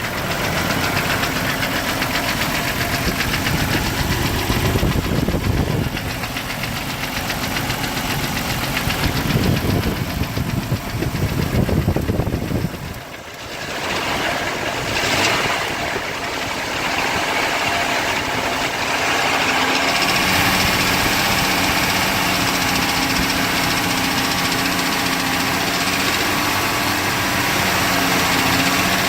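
Jeep TJ Wrangler's 4.7-litre stroker inline-six running with a fast, steady rattle from inside the engine, which the owner suspects may be a bad wrist pin or piston slap. The sound dips briefly about 13 seconds in.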